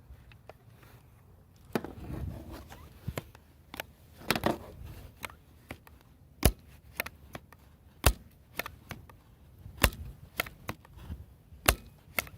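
BB rifle being fired again and again: a series of sharp cracks about every second and a half to two from about halfway through, with lighter clicks between them. Earlier come two brief stretches of rustling handling noise.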